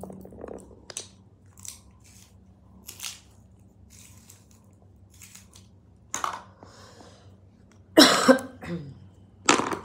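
Handling noises of makeup: compacts, a bronzer and brushes being picked up, opened and set down, a scatter of short soft rustles and taps, with two louder short sounds near the end.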